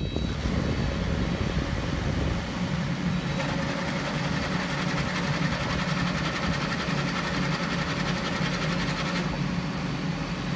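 Compact track loader engine running under load while it drives a sickle bar mower, the cutter knife clattering rapidly back and forth, most strongly from about three to nine seconds in. The mower is being run briefly right after assembly so its newly bolted drive hub can seat itself.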